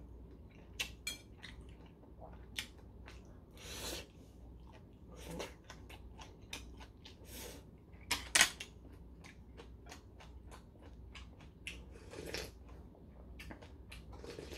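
Eating at the table: metal chopsticks clicking against dishes, with short slurps and chewing. A sharp clink about eight seconds in is the loudest sound.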